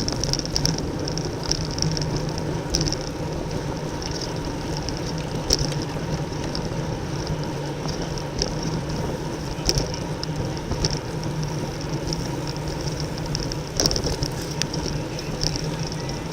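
Steady wind and road noise from a road bicycle ridden at race speed in a criterium bunch, with a few sharp clicks scattered through, the loudest near the end.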